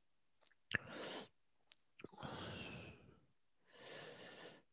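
A person breathing: three quiet breaths about a second and a half apart, with a sharp click just before the first.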